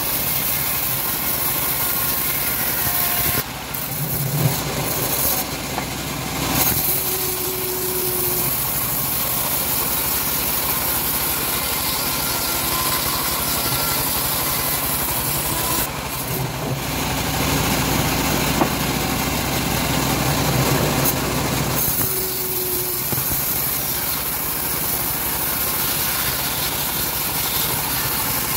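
Homemade bandsaw mill running and sawing through a dried teak log: a steady machine drone with the blade cutting the wood as the log is fed along the table.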